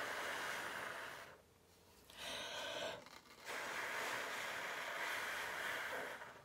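A person blowing hard by mouth onto wet acrylic paint on a wooden panel, pushing the paint outward into petals: three long airy blows with short breaks for breath between them.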